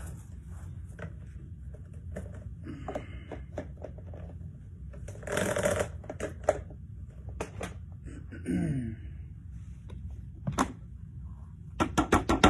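Clicks, knocks and rattles of plastic vacuum cleaner parts being handled as an attachment is taken off, with a short scraping rustle about five and a half seconds in, over a steady low hum. Just before the end a loud, fast rhythmic pulsing starts, about seven beats a second.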